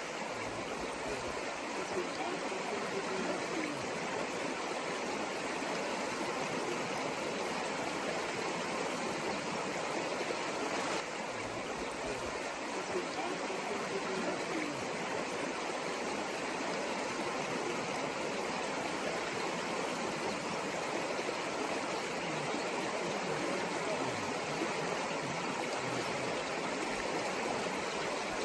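Stream water flowing: a steady, unbroken rush of running water.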